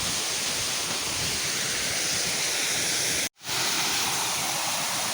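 Waterfall rushing: a steady, dense hiss of falling water with no change in level. It drops out to silence for a split second a little over three seconds in.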